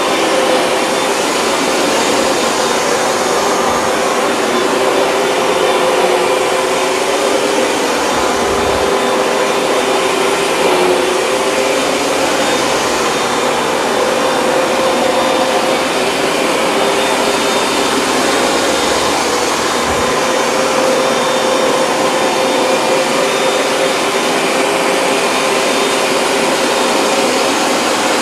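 Hoover Dual Power Max upright carpet cleaner running steadily on a rinse pass, pulling soapy rinse water out of the carpet: a loud, even rushing from the suction motor with a steady hum over it.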